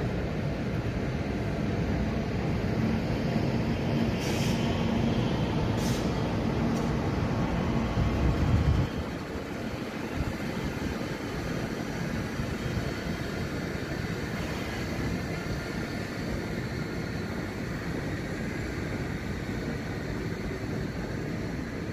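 Intercity train with a DB class 101 electric locomotive moving out: a loud rumble of wheels with a steady electric hum, and two sharp clicks about four and six seconds in. The rumble cuts off suddenly about nine seconds in, leaving a fainter steady rumble.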